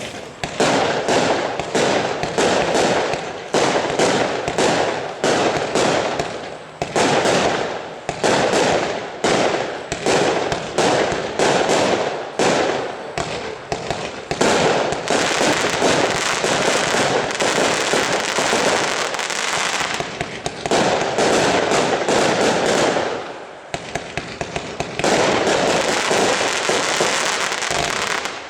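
A 198-shot, 20 mm fireworks compound cake firing shot after shot in quick succession, with a brief lull about three-quarters of the way through.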